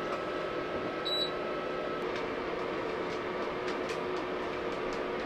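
A steady mechanical hum with a faint, even tone, and a few light clicks over it.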